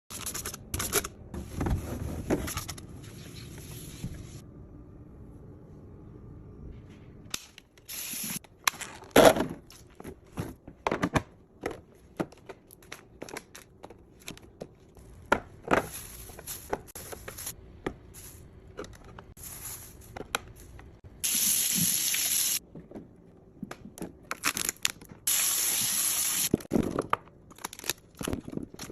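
Packaged snacks and drinks being handled and set into a fridge: a string of taps, clicks and scrapes of plastic and cardboard, with two short hissing stretches of about a second each in the second half.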